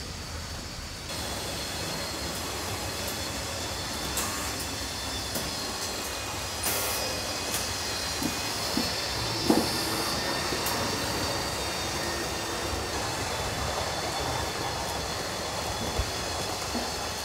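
Model railway trains running around the layout: small motors whirring and metal wheels rattling along the track, with irregular sharp clicks over rail joints and points, the loudest about nine and a half seconds in.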